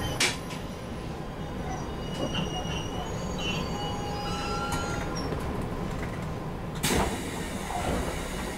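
Running sound inside a JR Kyushu 811 series electric train car at low speed, a steady rumble with thin squeals from the wheels and brakes, as the train comes in to its stop. A single sharp knock about seven seconds in.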